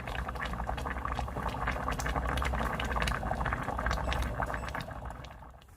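Food cooking in a pan or pot on the stove, a steady bubbling with many fine crackles, fading out near the end.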